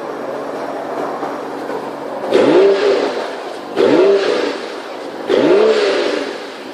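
BMW F30 335i ActiveHybrid 3's turbocharged inline-six breathing through a Remus aftermarket exhaust. It idles, then is revved three times in quick blips about a second and a half apart, each rising in pitch and falling back to idle.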